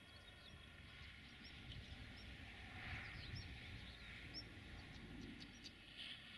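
Faint birdsong: short high chirps repeated roughly once a second, over a low rumble of wind.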